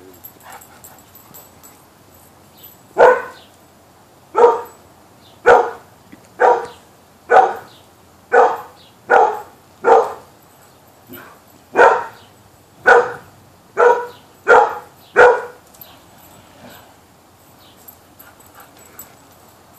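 A dog barking: about a dozen loud single barks, roughly one a second, starting about three seconds in and stopping after about fifteen seconds.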